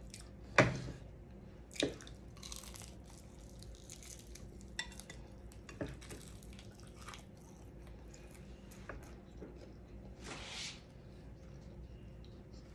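Quiet eating sounds from a person eating cornmeal-battered fried fish with her fingers: faint mouth smacks and sharp clicks, the loudest about half a second in and another near two seconds, with a short breathy noise about ten seconds in.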